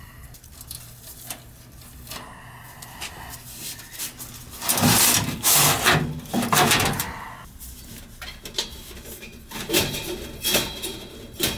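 Scraping, rubbing and knocking from a gas furnace's blower assembly being handled and turned by hand, loudest for a couple of seconds near the middle. Something inside is hitting: the blower wheel has come loose on its shaft.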